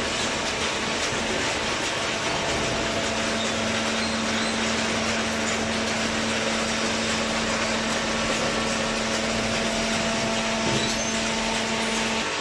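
Horizontal hydraulic baler for corrugated cardboard running: steady machine noise, with a low steady hum that sets in about two and a half seconds in and stops just before the end.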